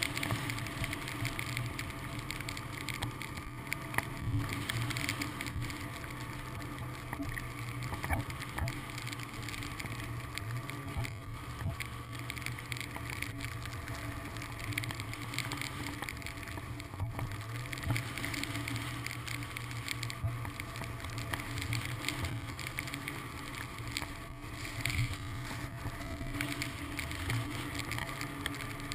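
Ski-Doo snowmobile engine running steadily under way, heard from a helmet-mounted camera, with an even hiss and scattered small ticks over it.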